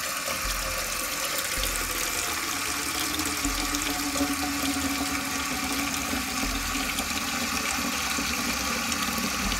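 Tap water running from a kitchen faucet into a metal cooking pot, a steady splashing rush as the pot fills.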